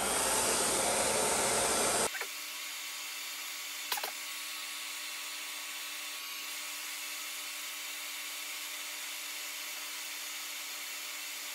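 Handheld hair dryer blowing on low heat to soften a rubber shifter hood. A louder rush for the first two seconds, then an abrupt drop to a quieter, steady hiss with a faint hum.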